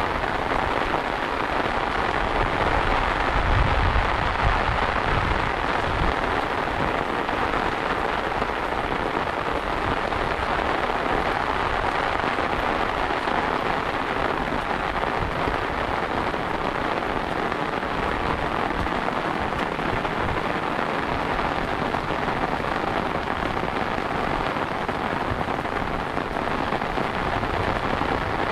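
Steady rain falling, pattering on an umbrella held overhead. A low rumble swells briefly a few seconds in.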